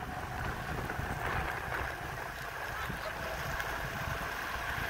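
Ownboard Zeus Pro electric skateboard rolling along on 127 mm TPU wheels: a steady low rumble with a faint steady motor whine over it.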